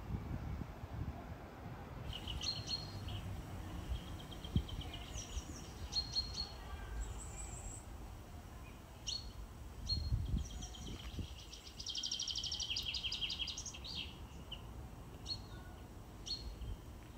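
Songbirds chirping and singing, short high notes repeated here and there and a fast trill of about two seconds in the second half, over a low background rumble.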